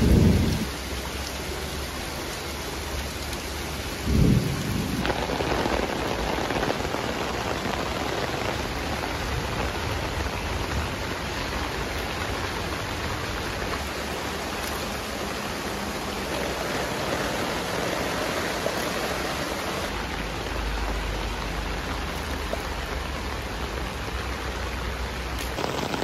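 Heavy rain pouring steadily onto a nylon tent rainfly and lawn. Two short, loud low thumps come at the very start and about four seconds in.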